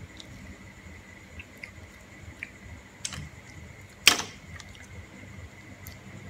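Boiled green mussel shells clicking and clinking as they are pried open by hand, with a sharper knock about four seconds in.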